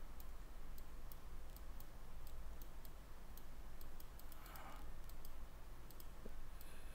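Computer mouse clicking, a string of irregular light clicks over a low, steady hum from the recording.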